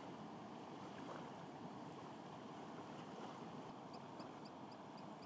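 Steady rushing of water from a small waterfall and its rapids. Near the end, a faint series of high ticks begins, about four a second.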